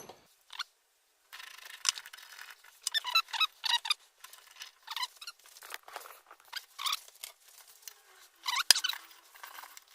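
Metal squeaking and creaking under load as the bolt of a bearing remover is wound down to press an old bearing off a differential shaft end, with one sharp click near the end. The bearing is still holding and has not yet let go.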